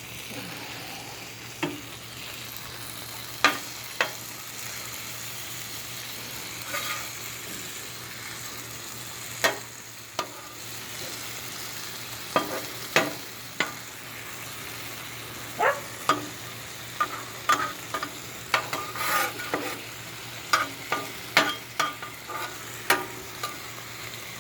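Food sizzling on a gas griddle, with a metal utensil repeatedly scraping and tapping the griddle top as the food is stirred. The short strikes come more often in the second half.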